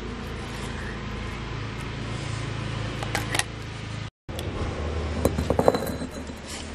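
Hand-operated stone grinder (aattukal): paste is scraped off the stone, and then the heavy cylindrical stone pestle is lifted out of the mortar with a cluster of stone-on-stone knocks and scrapes, over a steady low rumble.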